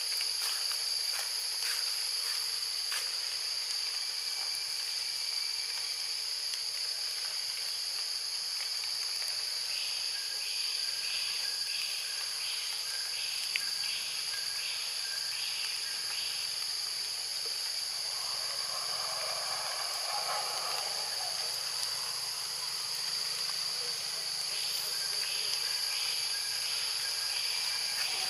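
Steady, high-pitched chorus of forest insects, with a second, lower insect call pulsing about twice a second in two spells, one through the middle and one near the end.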